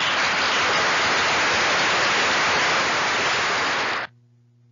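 A steady burst of static-like hiss, loud and even, that starts abruptly and cuts off suddenly about four seconds in.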